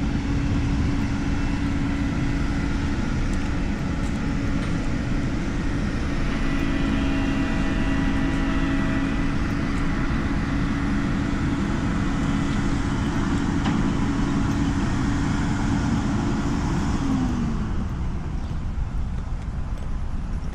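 A vehicle running steadily past, with a constant mechanical tone that drops in pitch and dies away about three seconds before the end.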